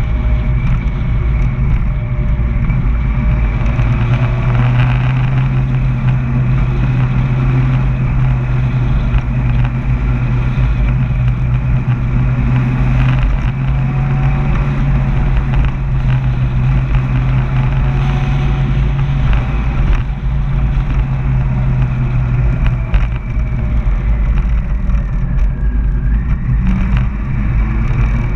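A vehicle engine running at a steady cruising speed, a constant low hum under heavy wind and road rumble picked up by an onboard camera.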